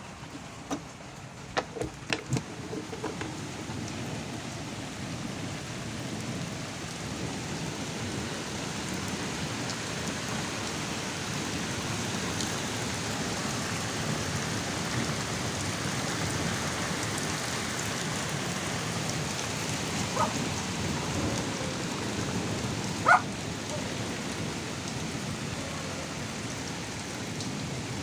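Heavy rain pouring steadily over a continuous low rumble of thunder that drones on like a big plane flying low. The rain swells over the first few seconds. A few sharp drip taps sound early on, and a louder one comes about twenty-three seconds in.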